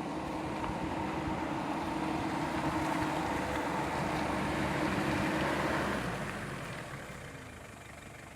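An off-road SUV's engine running steadily, growing a little louder and then fading away over the last few seconds.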